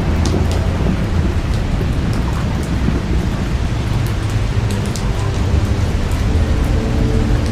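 Heavy rain pouring steadily, with single drops spattering close by and a low thunder rumble underneath.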